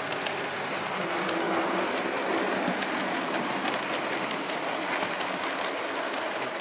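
Model train running past on the layout track: a steady rushing noise of wheels on rail, with a few faint clicks.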